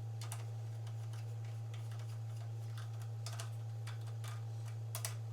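Scattered light clicks and taps of small engine parts being handled and fitted by hand, over a steady low electrical hum.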